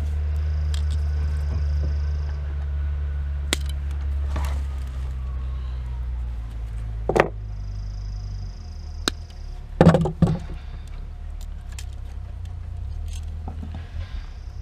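Hand tools working on outlet wiring: a handful of sharp metallic clicks and snips, the loudest pair about ten seconds in, over a steady low hum. A faint high steady tone comes and goes three times.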